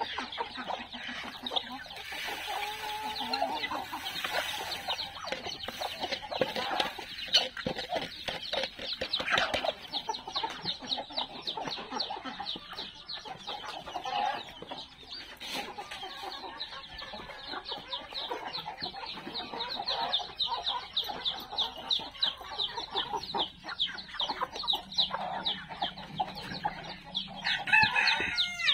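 A coop of chickens: chicks peeping in a rapid, continuous stream of short high calls, with hens clucking underneath. A louder bird call comes near the end.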